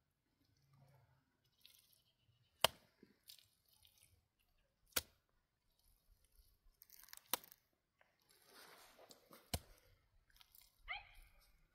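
Wet mud plaster being smeared and pressed onto a cinder-block wall by hand: soft rubbing and squishing, with four sharp clicks spaced a couple of seconds apart. A brief falling chirp-like call sounds near the end.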